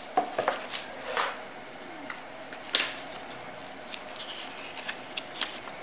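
Paper leaflets and a paper sleeve being handled and pulled apart, giving a series of short, crisp rustles and crinkles.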